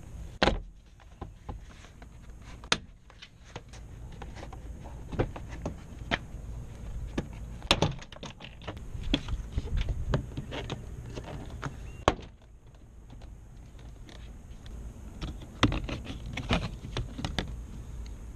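Plastic interior door trim of a Nissan Murano being pried loose and handled: irregular clicks and knocks, with a few sharper snaps among them.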